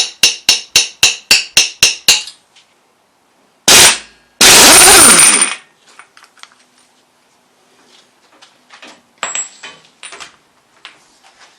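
Hammer striking a steel punch, about nine quick blows at roughly four a second, knocking back the locking tab on the timing sprocket nut of an A-series engine. A few seconds in come two very loud bursts of noise, the second lasting about a second, then light clicks of metal parts being handled.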